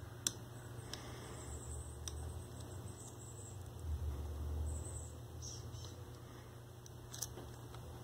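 Small screwdriver and fingers working a plastic Molex MX150 wiring connector: faint scattered clicks and scratches, the sharpest about a quarter second in and another near the end, over a low steady hum.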